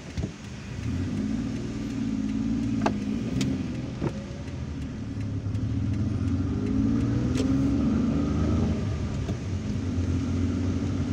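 Vehicle engine running in slow traffic, heard from inside a car. Its pitch rises and falls as it speeds up and eases off, with a few sharp ticks over the top.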